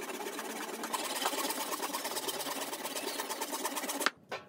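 Handsaw cutting through a small protruding piece of hardwood to trim it flush with a wooden mallet head: a steady, rapid rasp of the teeth in the wood that stops suddenly about four seconds in.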